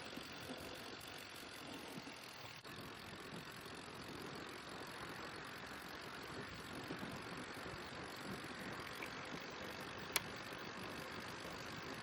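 Steady rolling noise of a bicycle ride, with tyres on the road and air rushing past. A single sharp click comes about ten seconds in.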